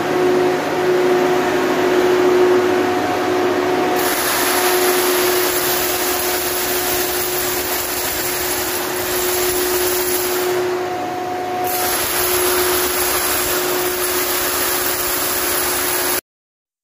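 Machinery running steadily: a continuous whir with a steady low hum, shifting slightly about four seconds in and easing briefly about ten and a half seconds in. It cuts off abruptly near the end.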